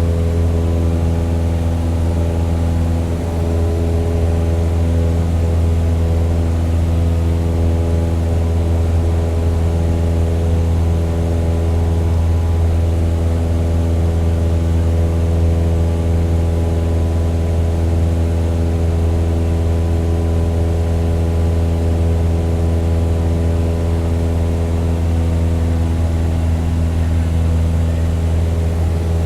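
Toy plane's motor running at a steady pitch, a low hum with a stack of even overtones and no rise or fall.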